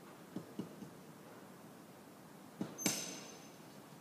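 Light fingertip taps on a piece of thin scored mirror glass, tapping to make the score cut run. About three seconds in, a sharper glassy crack with a short ring.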